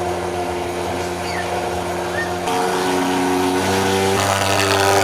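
Background music: sustained held chords that change a few times, growing slightly louder toward the end.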